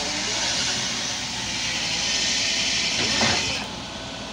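Volvo EW145B wheeled excavator's diesel engine running under load as the machine dumps soil and swings its arm, with a loud hiss that cuts off suddenly about three and a half seconds in, just after a brief knock.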